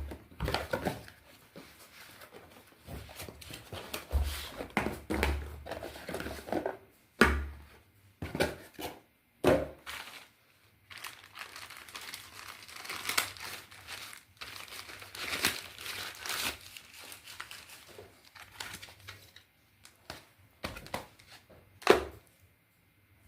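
Packaging crinkling and crumpling in irregular bursts as it is handled and opened, with a few sharper knocks, the loudest near the end.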